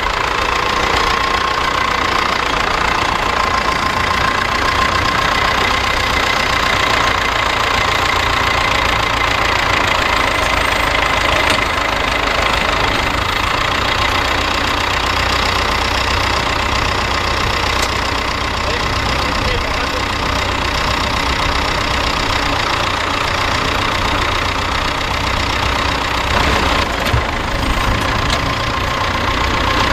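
Nuffield 4/60 tractor's four-cylinder engine running steadily as the tractor pulls a mounted plough.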